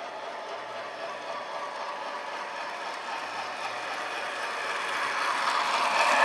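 Model train running along the track with a steady rattling clatter, growing louder toward the end as it comes closer.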